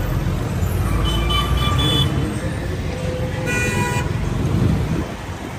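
Road traffic with vehicle engines running close by, a few short horn toots about a second in, and a louder horn blast of about half a second about three and a half seconds in.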